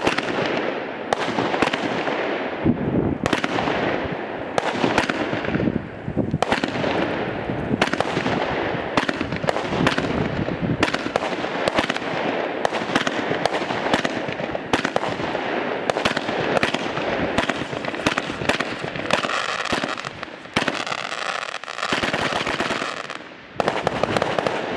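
Weco 'Grand Slam' fireworks battery firing shot after shot: a rapid, unbroken run of launch bangs and bursts, roughly two a second, over a sizzling hiss.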